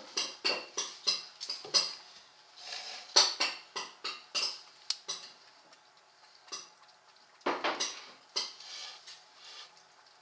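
Round wooden balance board rocking under a baby's feet, its rim knocking and clattering on a tiled floor in short, irregular taps. The taps are quieter for a couple of seconds past the middle, with a heavier knock about seven and a half seconds in.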